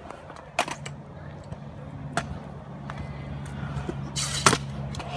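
Stunt scooter rolling on a concrete skatepark, with a few sharp clacks of the deck and wheels hitting the concrete, the loudest cluster about four seconds in, over a steady low hum.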